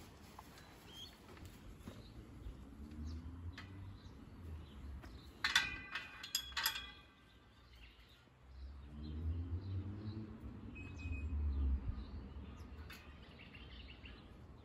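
A bird chirps several times a little past the middle, over a low rumble that swells and fades twice.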